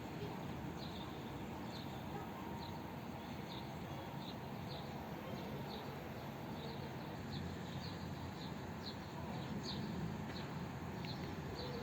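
A small bird chirping over and over, short high chirps about twice a second, over a steady rush of strong wind.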